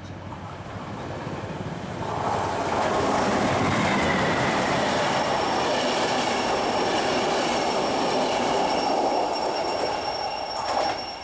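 A train of passenger coaches passes close by, its wheels rumbling and rattling on the rails. The noise builds over the first two seconds, holds loud for about eight seconds with a thin steady high whine over it, then drops away as the last coach goes by.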